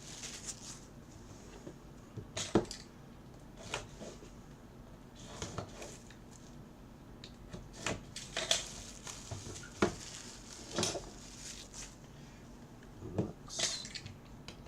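Scattered light clicks, taps and scrapes of trading-card boxes and their packaging being handled and opened, about ten sharp sounds spread irregularly across the stretch.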